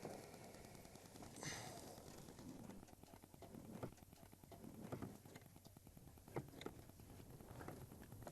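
Near silence with no engine running: the motorcycle's engine has cut out. Only a short rustle about one and a half seconds in and a few faint, scattered clicks.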